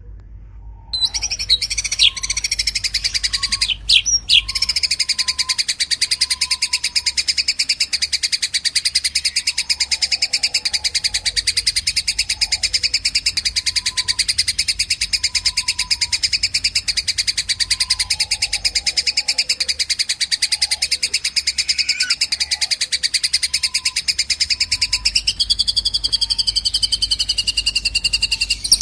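Small songbird giving a fast, continuous high-pitched trilling chatter that starts about a second in and runs on without a break, shifting its pattern briefly near the start and again near the end, with fainter lower notes repeating underneath.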